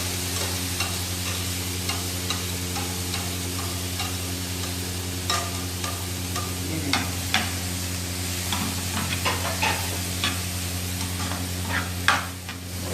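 Diced capsicum and carrots sautéing in butter in a pan, sizzling steadily while a utensil stirs and scrapes, with irregular clicks of the utensil against the pan, the loudest near the end. A steady low hum runs underneath.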